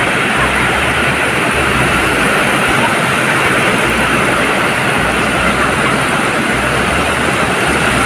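Ocean surf washing onto a beach in a steady, continuous roar, with an uneven low rumble underneath.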